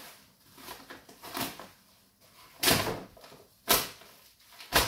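Plastic wrapping and packing tape being ripped off a parcel by hand: rustling, then a series of sharp tearing rips about a second apart in the second half.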